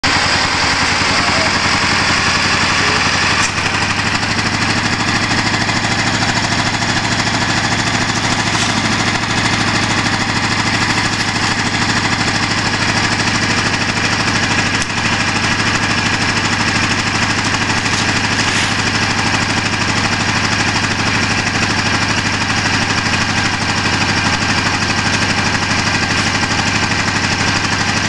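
Gravely tractor engine running at a steady speed.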